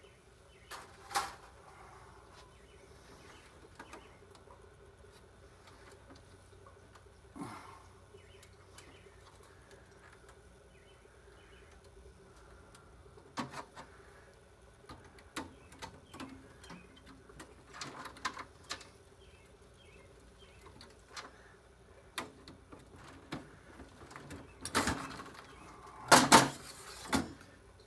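Scattered clicks and knocks of electronic circuit boards and tools being handled on a bench, with a louder clatter near the end. Faint bird chirps in the background.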